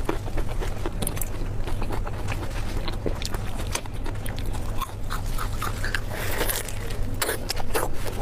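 Close-miked eating: a person chewing and biting food, with many short sharp mouth clicks and smacks at an irregular pace, over a steady low hum.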